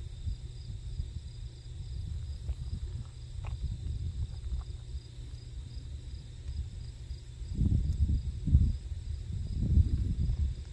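Wind buffeting the microphone in an uneven low rumble, with two stronger gusts near the end. Behind it runs a steady high, softly pulsing chirring of insects.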